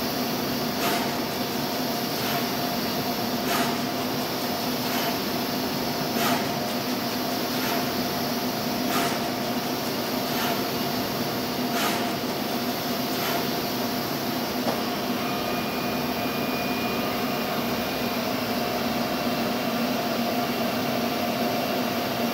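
Samsung SMT pick-and-place machine running: a steady mechanical hum with a sharp click about every one and a third seconds. The clicks stop about fourteen seconds in and the hum carries on.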